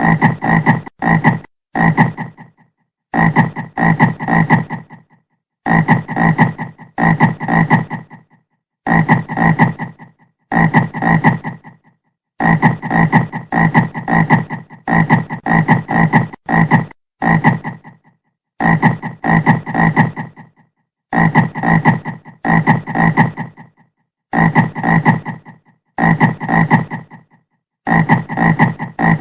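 Frog croaking over and over: short pulsed croaks in runs of three to five, each run followed by a brief silence.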